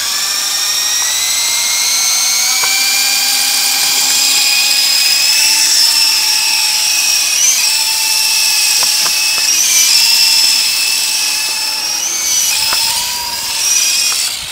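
Small electric RC helicopter motor and rotor running with a high-pitched whine that starts abruptly, rises a little in pitch over the first few seconds, then wavers up and down as the throttle changes.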